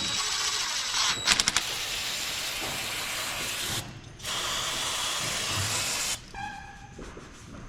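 Power tool running in two long bursts, with a quick run of sharp clicks early in the first and a short pitched whine as it winds down near the end.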